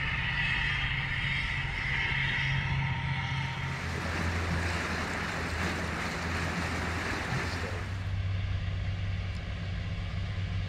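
Steady low diesel drone of a towboat pushing barges past. About four seconds in it gives way to a rush of wind and water noise, and from about eight seconds a steady low motor drone runs again.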